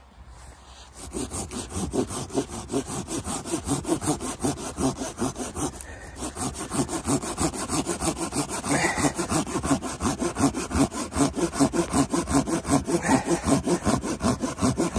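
Hand pruning saw cutting through a small tree trunk of fresh wood in rapid, steady back-and-forth strokes, starting about a second in.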